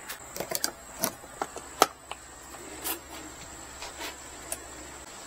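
A 12-volt car charging cable being handled and plugged into a portable power station's charging input: a string of plastic clicks and knocks, most of them in the first two seconds, then a few more spaced out.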